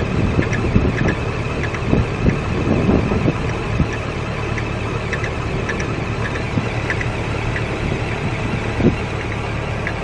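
Nissan 240SX engine idling steadily with a light, irregular ticking over its hum. There are a few dull thumps in the first four seconds and one near the end.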